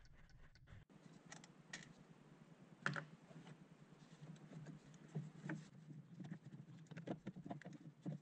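Faint scattered clicks and light knocks of parts being handled in the engine bay as the clutch slave cylinder is worked free and moved aside, over a low steady hum. The sharpest knock comes about three seconds in.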